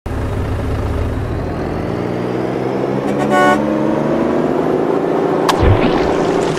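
Truck engine running steadily, its pitch creeping up, with a horn tooting once for about half a second a little after three seconds in. A sharp click and then a low thump come near the end.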